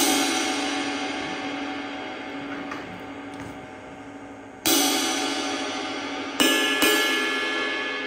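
A 22-inch Heartbeat Epic ride cymbal struck with a wooden drumstick: one hit at the start, another about halfway through, then a firm and a lighter hit near the end. Each hit rings out into a long shimmering wash that slowly fades.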